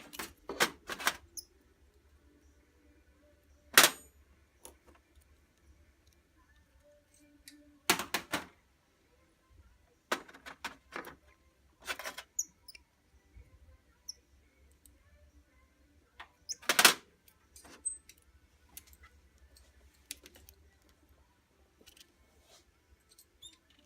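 Sharp clicks and taps from pliers working a wire dental clasp, about ten clear ones at irregular intervals, the loudest about four seconds in and again past the middle, with faint fiddling between them.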